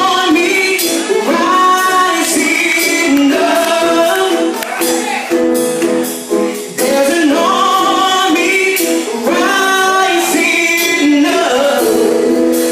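Live gospel music: female voices singing with a band, holding long notes over sustained chords.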